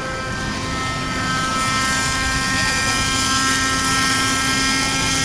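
Raptor nitro RC helicopter running in flight: a steady high whine from its glow engine and rotors, with many overtones. It grows louder about a second and a half in.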